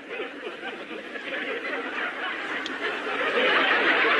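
A crowd of many voices chattering, with snickers and laughter mixed in, growing louder about three seconds in.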